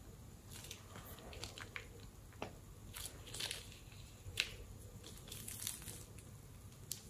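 Rubber balloon filled with thick slime glue being squeezed and handled, giving scattered crinkles and sharp clicks, with wet squishes as the glue squeezes out.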